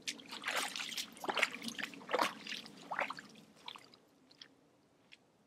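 Hiking boots squelching and splashing through mud and shallow puddles in an irregular walking rhythm, growing fainter and dying away about four seconds in.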